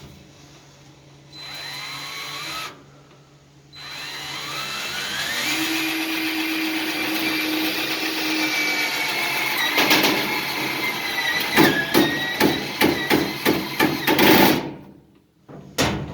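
Power drill driving screws: a short run, then a long run whose whine shifts in pitch, breaking into a rapid string of sharp knocks before it stops, with a brief burst near the end. The screws are not driving in properly.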